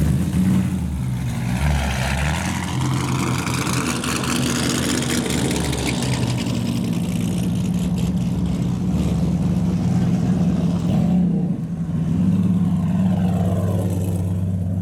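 Car engine running steadily in a low rumble. A vehicle drives past in the first few seconds and again near the end.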